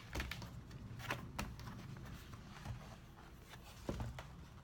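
Faint handling sounds of a children's book being handled: a few soft clicks and rustles scattered through, with one near the start, two about a second in and one near the end.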